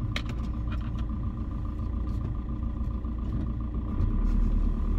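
Car engine and road noise heard from inside the cabin while driving, a steady low drone. A few light clicks come in the first second, and the low rumble grows louder about four seconds in.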